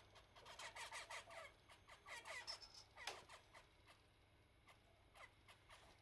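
Zebra finches calling: a quick run of short, high calls for about the first three seconds, then a few single calls spaced out.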